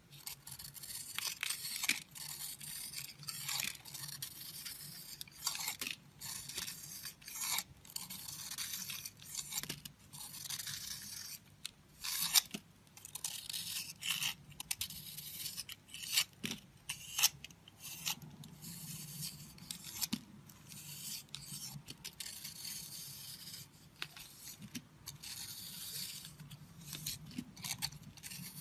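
A knife scraping and carving into a bar of dry, crumbly soap in many short, irregular strokes, shaving pieces off.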